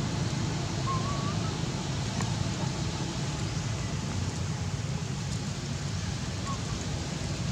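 Steady low outdoor rumble, with a short wavering whistle about a second in and a fainter one near the end.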